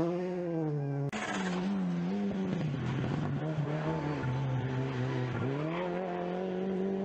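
Rally car engines revving hard, the pitch falling and rising as the drivers lift off and accelerate again. About a second in, one car's engine gives way abruptly to another's.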